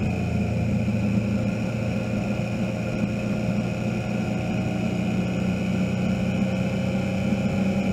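Motorcycle riding along at road speed, heard from a camera on the bike: a steady engine note with road noise, unbroken throughout.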